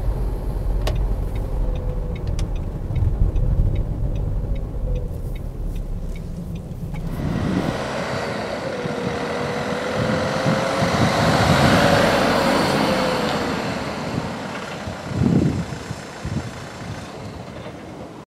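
Renault Trafic diesel van on the move: steady low road and engine rumble with light regular ticks. About seven seconds in, this gives way to a rushing vehicle sound with a faint whine that swells and then fades away.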